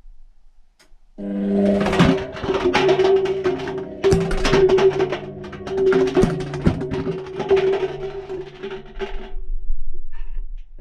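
Indesit washing machine drum turning a tumble with a steady motor hum, plastic cups clattering and knocking against the steel drum as they fall, heard from inside the drum. It starts about a second in, swells roughly every two seconds, and stops shortly before the end.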